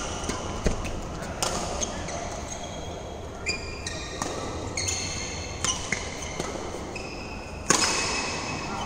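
Badminton rally: rackets hit a shuttlecock with sharp pops every second or so, and shoes squeak in short high chirps on the court mat. The hardest hit comes near the end.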